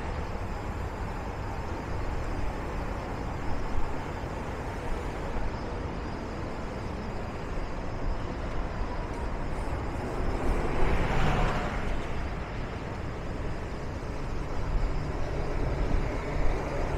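City street traffic: a steady rumble of passing vehicles, with one vehicle passing close, swelling and fading about eleven seconds in.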